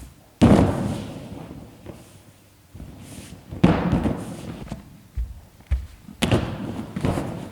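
Three heavy thumps, about three seconds apart, each fading away over a second: a person bouncing down onto a big soft latex balloon.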